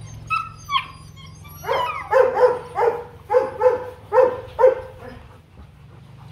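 Rottweiler giving two short, high whining yelps, then a rapid run of about eight short barks, roughly three a second.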